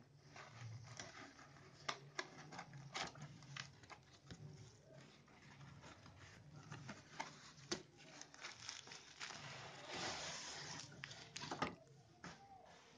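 A small cardboard box being handled and opened by hand: scattered faint taps and clicks as the sealed flap is worked loose, with a denser stretch of rustling about ten seconds in.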